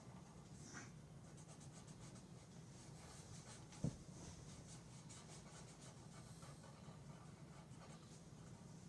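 Faint scratching of a drawing tool on paper as a child draws a heart-shaped nose and eyes, in many short strokes. A single short knock about four seconds in.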